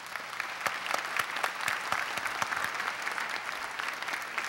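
Large audience applauding steadily, many hands clapping at once.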